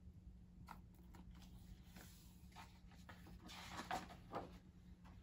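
Near silence: room tone with a low steady hum. About three and a half seconds in, a large picture-book page rustles softly as it is turned.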